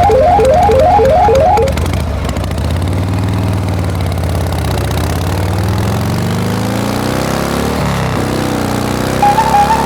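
A rapid rising electronic beeping pattern repeats about five times, then a vehicle engine runs with its pitch gliding up and down as if revving. A short high beep comes near the end.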